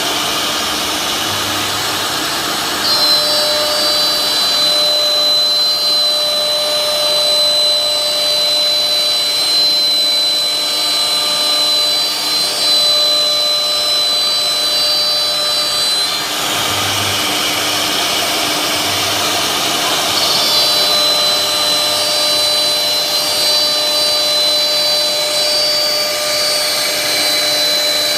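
Multi-head CNC router's spindles running at high speed and cutting a carved door-panel pattern into a wooden board. The cutting noise is steady and loud. A high whine comes in a few seconds in, drops out for a few seconds past the middle, then returns.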